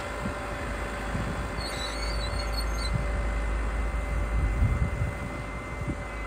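New Holland Ford 7740 tractor's diesel engine running steadily under load while pulling a four-furrow plough, with a few brief low rumbles about four and a half seconds in.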